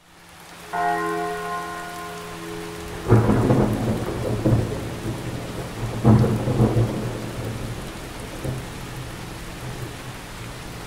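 Thunderstorm: steady rain with two loud claps of thunder about three seconds apart, each rumbling away slowly. A held musical chord sounds for about two seconds before the first clap.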